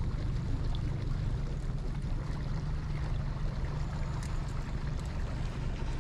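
Outboard boat motor running steadily at low speed, a continuous low drone.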